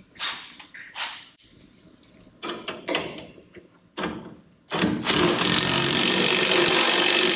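A few short metallic clanks and knocks of tools and parts. About two-thirds of the way in, a power tool starts and runs steadily, fastening a bolt on the front suspension.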